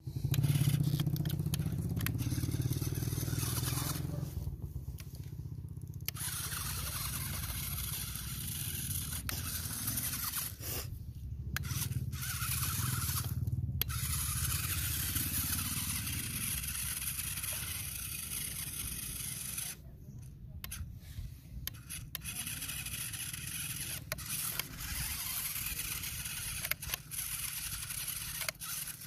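A small model tractor's motor running as the toy's wheels crawl over loose gravel, with stones scraping and crunching under the tyres.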